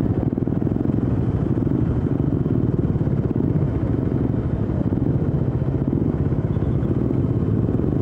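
Motorcycle engine running steadily at an even speed, heard from on the bike, with a fast, even pulsing of the exhaust.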